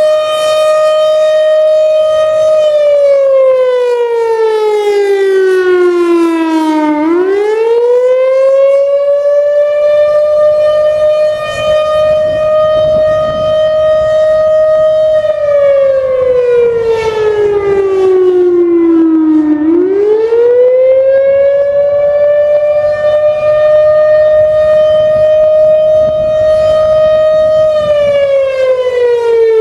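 Federal Signal Thunderbolt 1000 mechanical outdoor warning siren sounding the attack signal in a routine test. A loud held wail drops slowly in pitch over several seconds, then sweeps quickly back up and holds. The cycle repeats about every twelve seconds, with three slow falls and two climbs in this stretch.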